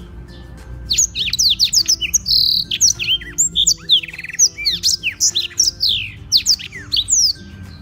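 Black-throated canary (blackthroat) singing a fast, varied song of rapid chirps, trills and whistled sweeps, starting about half a second in and stopping shortly before the end.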